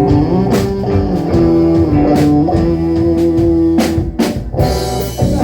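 Rock band playing an instrumental passage: guitar holding long sustained notes over a drum kit beat.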